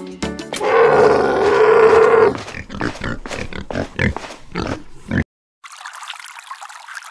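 A pig grunting sound effect about a second in, over background music with a steady beat. The sound drops out about five seconds in, and a thin hiss follows near the end.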